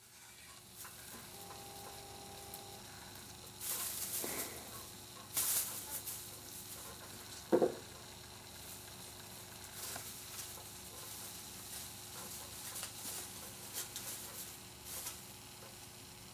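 Artificial Christmas tree branches rustling and shaking as a kitten climbs through the top of the tree, in scattered bursts, with a short thump a little before halfway.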